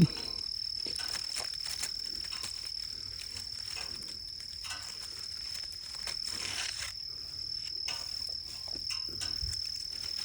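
A steady, high-pitched insect chorus drones without a break, with light, scattered rustling of brush over it.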